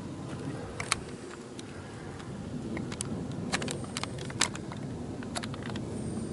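Footsteps on gravel: irregular crunches and sharp clicks of stones underfoot, the loudest about a second in and again near the middle.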